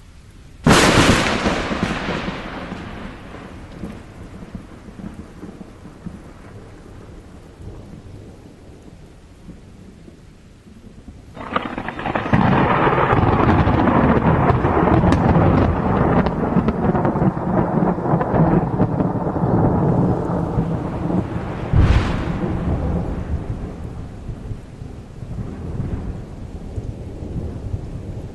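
Thunderstorm with steady rain. A sharp thunderclap comes just under a second in and fades over a few seconds. A long rolling rumble of thunder builds after about eleven seconds, with another sharp crack near the end before the thunder dies away.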